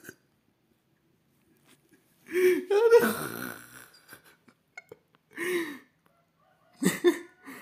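Three short wordless bursts of a person's voice separated by silence: the first and loudest, about two to three seconds in, rises in pitch, and shorter ones follow near the middle and near the end.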